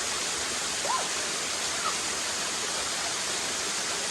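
Steady rush of a waterfall's falling water, an even hiss with no break.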